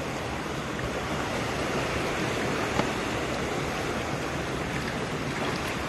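Shallow stream running over its bed: a steady rushing of water, with one brief click just under halfway through.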